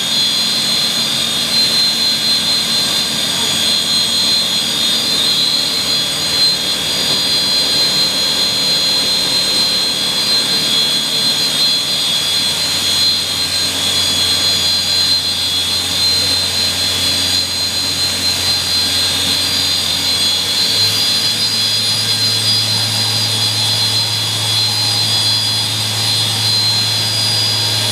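Haas VF-5/50 vertical machining center powered up and running, giving a steady high whine over a hiss. The whine steps up slightly in pitch about five seconds in and again about three-quarters of the way through, when a low hum also comes in.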